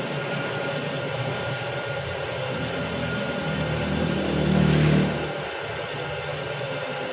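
Old milling machine running, its 1-inch drill boring through a metal ball-peen hammer head: a steady machine hum with a couple of steady higher tones. About four seconds in a louder low drone swells up, then stops suddenly a second later.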